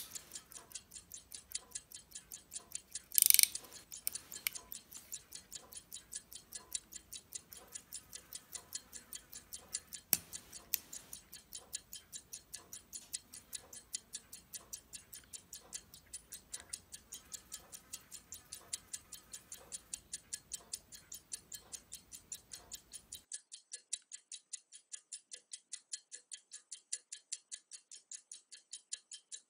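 Longines chronograph pocket watch movement ticking quickly and evenly, running on its test after repair. A brief loud clack about three seconds in.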